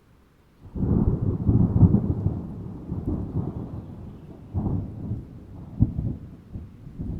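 Thunder: a low rumble breaks in suddenly just under a second in, loudest over the next two seconds, then rolls on in fainter surges with a sharper clap near the end.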